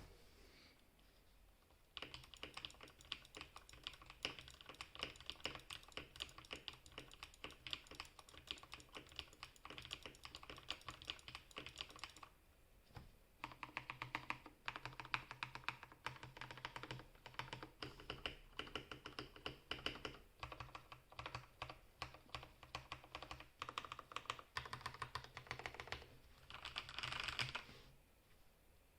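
Typing on a Corsair Strafe RGB MK2 mechanical keyboard with lubed Cherry MX Red switches: a fast, dense run of key clicks, with a short pause about twelve seconds in and a stop near the end.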